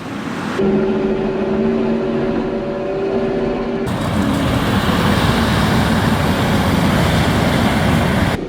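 Kioti compact track loader running, in cut-together clips: first a steady whining hum, then from about four seconds in a louder, rougher, noisier running sound.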